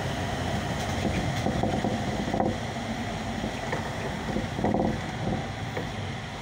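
Steady engine and road noise inside a Solaris Urbino 18 III articulated bus on the move, with two short knocks, at about two and a half and about five seconds in.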